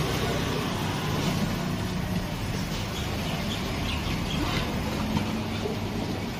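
Steady low engine-like hum with a constant background rush, with a few faint light ticks in the middle.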